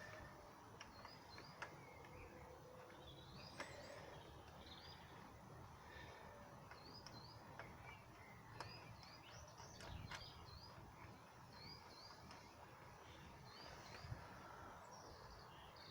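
Faint birdsong: short chirps repeated in little pairs and runs over a low background rumble, with a few light clicks.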